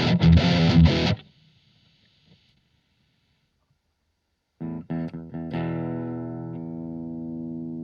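Electric guitar through a Blackstar ID Core Stereo 40 amplifier: a distorted passage that cuts off about a second in, then silence, then a few picked notes and a chord left ringing.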